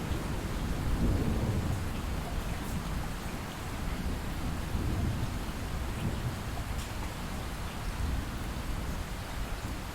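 Light steady rain with a distant low rumble of thunder, strongest in the first couple of seconds and fading away after about three seconds.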